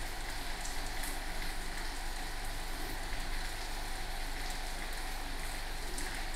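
Steady hiss of background noise, like rain, over a low electrical hum.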